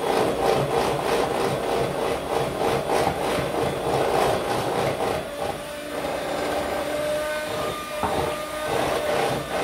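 Electric hand mixer running with its beaters in crepe batter, a steady motor whine over a repeated scraping of the beaters in the bowl.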